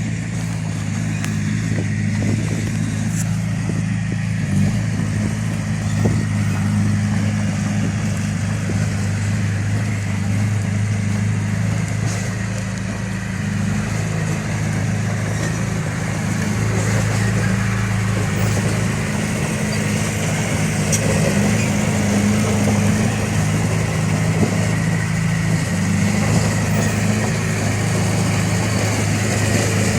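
Bulldozer's diesel engine running steadily at a constant speed, a low even drone.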